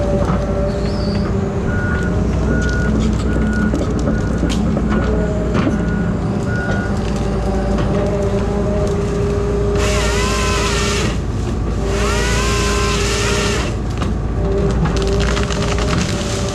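Heavy tree-removal machinery running: a diesel engine drones steadily while a reversal alarm beeps about seven times in the first half. Two bursts of hissing whine, rising in pitch, come in the second half.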